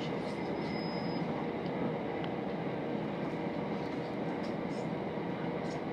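Southern Class 377 electric multiple unit running at speed between stations, heard from inside the carriage: a steady rolling rumble with a faint steady hum.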